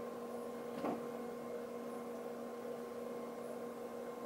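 Steady electrical hum holding a few fixed pitches, with one light click about a second in as a bracelet's hook clasp is worked by hand.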